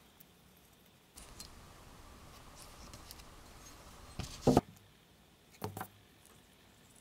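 Handling noise from a steel ratchet body and its small parts being worked by hand during greasing: a soft rustle with a few light metallic clicks and knocks, the loudest two about four and a half seconds in and another pair near six seconds.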